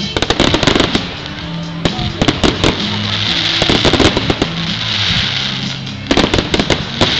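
Fireworks display: aerial shells bursting in rapid volleys of bangs and crackles, in thick clusters at the start, about two seconds in and again near the end, with a crackling hiss between them. Music plays underneath.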